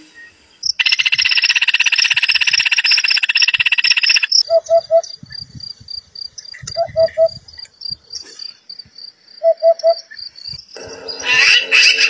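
A loud, dense buzzing trill fills the first few seconds. Then a Eurasian hoopoe gives its soft three-note 'oop-oop-oop' song three times over a fast, high ticking. Near the end, a magpie breaks in with a harsh chatter.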